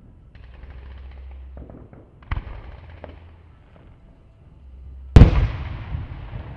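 Aerial fireworks shells bursting. A hiss near the start is followed by a sharp crack about two seconds in and a few small pops. A much louder bang comes a little past five seconds, with a long rolling echo that fades slowly.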